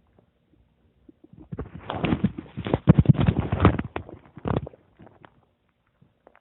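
Human stomach gurgling: a burst of rapid bubbling crackles starting a little over a second in and lasting about three seconds, then a few faint ticks.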